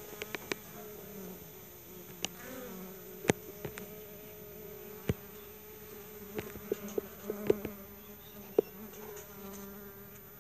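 Honey bees buzzing at a hive entrance: a steady hum with the wavering drone of foragers flying in and out close by. Scattered sharp clicks come through the buzzing.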